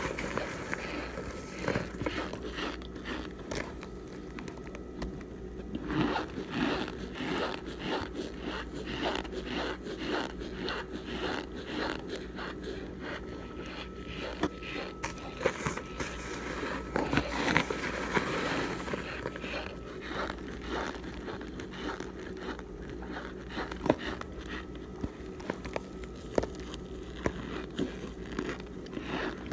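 Argo cornstarch chunks crushed under fingertips: a run of dry crunches and crackles, busier about six seconds in and again around seventeen seconds.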